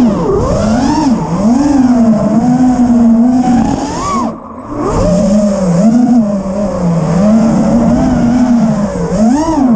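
FPV freestyle quadcopter's brushless motors whining, the pitch swinging up and down with the throttle, over wind rush. About four and a half seconds in the whine drops away briefly as the throttle is cut, then comes back.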